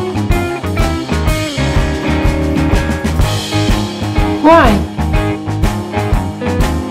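Background music with a steady beat and pitched instrumental notes, with one falling glide about four and a half seconds in.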